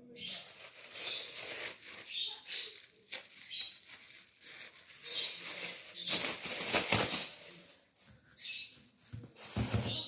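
Thin plastic bag rustling and crinkling in short, irregular bursts as peeled apple pieces are handled and dropped into it.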